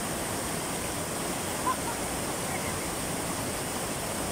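Waterfall water rushing and cascading over a rock chute, a steady dense rush of white water, with one short louder sound a little under two seconds in.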